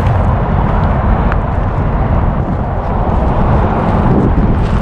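Steady low rumble of nearby highway traffic mixed with wind on the microphone, with a few footsteps crunching on gravel.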